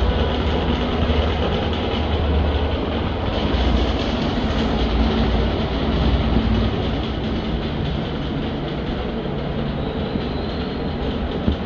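Loud, steady mechanical rattling and rumbling from a running 1959 Kassels ceiling fan, shaking on its mount during the fall-down test.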